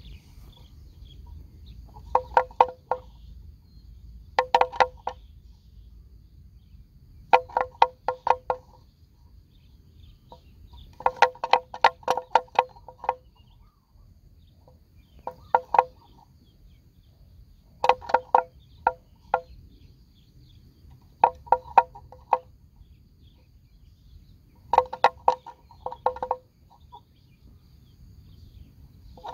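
Water buffaloes grazing, biting and tearing off grass in quick bursts of several sharp snaps, a burst every few seconds.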